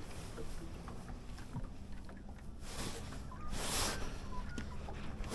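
Small waves lapping against the hull of a small boat, with a low steady hum underneath, faint scattered ticks, and a brief rush of noise a little past halfway.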